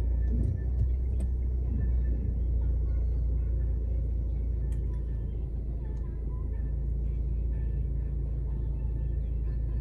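Steady low rumble of an idling car, heard from inside the cabin, with a few faint clicks.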